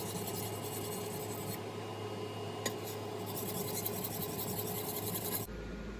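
Kitchen knife blade being stroked back and forth on a wet high-grit water stone, a steady scraping, working the burr over to the other side of the edge. The scraping stops shortly before the end.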